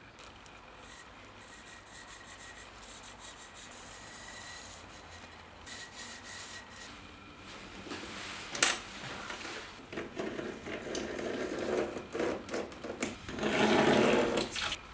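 Hand-sanding a flat steel knife blade: an abrasive pad rubbed back and forth over the steel in repeated strokes that grow louder toward the end, with one sharp click a little past halfway.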